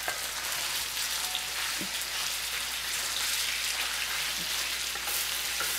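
Chicken pieces sizzling in hot oil in a stainless steel wok, a steady hiss as they are stir-fried.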